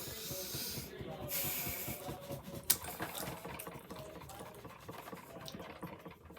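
Close-up eating sounds: chewing and mouth noises, with a hiss in the first two seconds and a single sharp click partway through.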